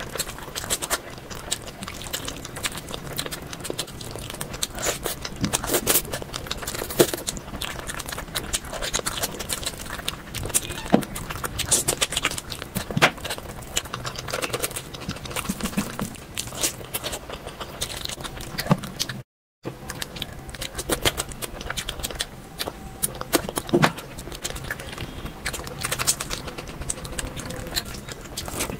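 Close-miked eating sounds: wet chewing and mouth noises with many small irregular clicks and scrapes. The sound cuts out for a moment about two-thirds through.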